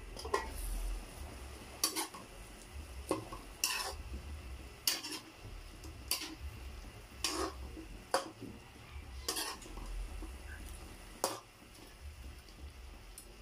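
Metal ladle stirring shrimp in an aluminium wok, knocking and scraping against the pan about once a second in sharp clinks.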